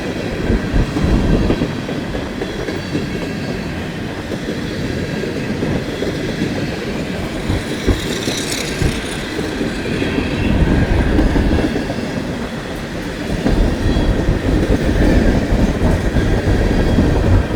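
A freight train's cars rolling past close by: a loud, continuous rumble of steel wheels on the rails with clickety-clack over the rail joints, swelling louder about ten seconds in and again near the end.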